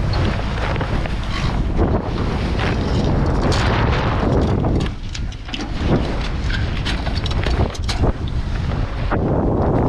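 Strong wind buffeting the microphone on a sailboat's deck, a steady low rumble broken by many short knocks and flutters.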